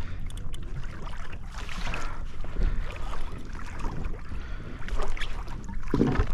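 Wind buffeting the microphone, with water sloshing and splashing against a kayak hull on the open ocean.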